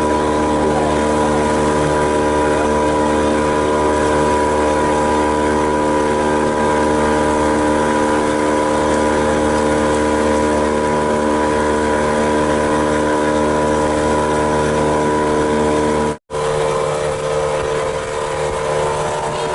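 Boat engine running at a steady speed, a constant hum with a noisy wash. About 16 seconds in the sound cuts out for a moment, then carries on with less of the low hum.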